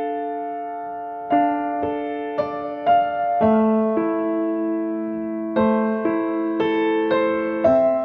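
Background music: a slow keyboard piece, single notes and chords struck every half-second to a second and left to ring out.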